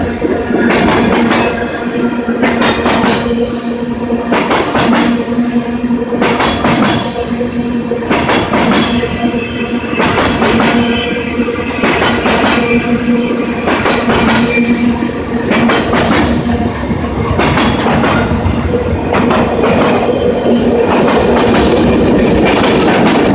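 Freight train cars rolling past a grade crossing, their wheels knocking over rail joints every second or two over a steady rumble. A steady ringing tone runs underneath the whole time.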